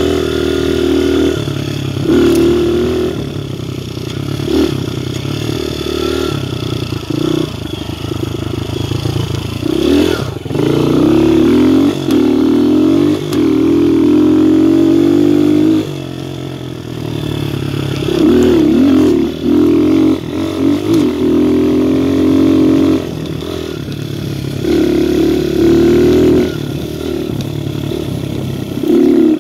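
A Viper 150cc dirt bike's engine running under way, the throttle opened in loud bursts that rise in pitch and then drop back. The longest steady pull comes midway and lasts several seconds.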